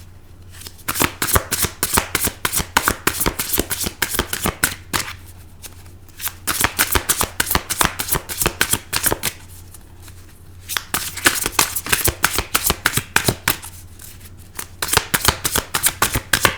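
A tarot deck being shuffled by hand: rapid, dense runs of cards slapping and flicking together, in about four bouts with short pauses between them.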